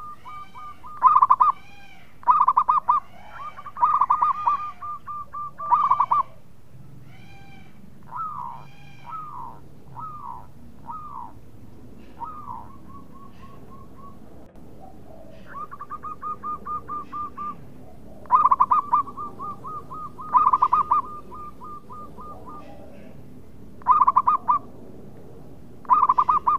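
Zebra dove (perkutut) singing: phrases of fast rolling coo notes repeated over and over, with several much louder phrases at the start and again in the second half, and a few short downward-sliding notes in between.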